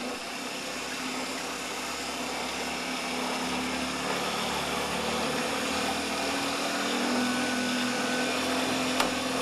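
Solar boat under way on its 1.5 HP electric outboard: a steady rush of water and air with a low motor hum under it, slowly building as the boat gathers speed.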